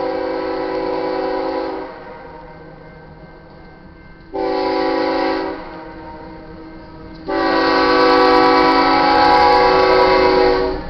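GE ES44AC diesel locomotive's multi-chime air horn sounding the grade-crossing signal: a long blast ending about two seconds in, a short blast around four seconds in, then a final long blast held until near the end.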